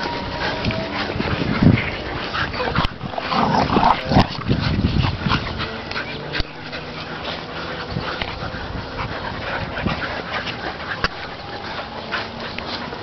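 Bull terriers and a Staffordshire terrier playing rough together: short, sharp dog vocalisations mixed with scuffling, busiest about three to four seconds in.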